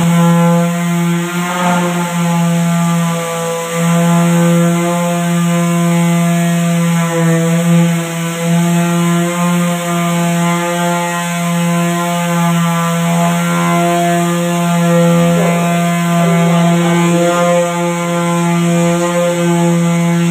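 Corded electric palm sander running steadily with a constant motor hum as it is pressed against and worked over a wooden door frame, its level wavering slightly as the pad moves on the wood.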